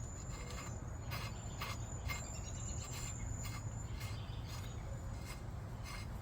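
Scattered light clicks and taps of propeller hardware being handled on the motor's shaft, over a steady high insect drone and a low outdoor rumble.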